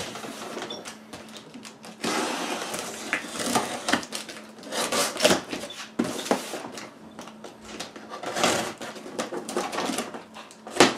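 Packing tape on a cardboard box being slit with a box cutter and pulled away, in a series of irregular rasping scrapes and tears, with cardboard rustling as the box is handled.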